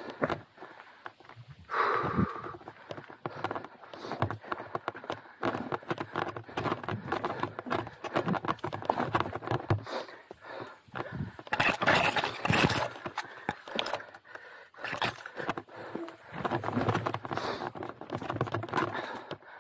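Chromag hardtail mountain bike clattering down a rocky, rooty trail: tyres on dirt and rock, with the bike rattling and knocking over the bumps. The clatter comes in uneven bursts and is loudest about twelve seconds in.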